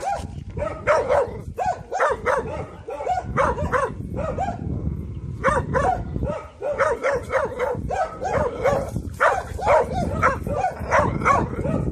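Young Taiwan dog barking rapidly and repeatedly, in quick runs with a short lull a little before the middle: alarm barking at a stranger.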